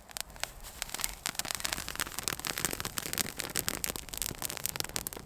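Dense, irregular crackling and scratching of dry wood and tinder during bow drill fire-making.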